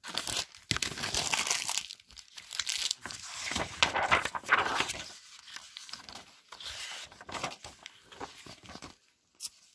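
Hardcover picture book being opened and its pages turned by hand: paper and cover rustling and crinkling, busiest in the first five seconds, then softer scattered rustles.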